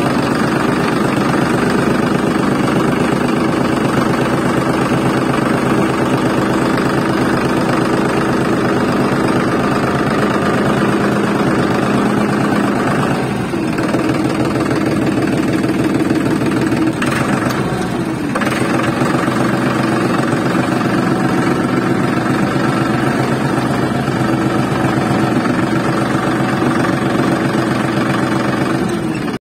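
Tractor engine running steadily with a rapid, even pulse. It eases briefly twice in the middle, as if under load while towing.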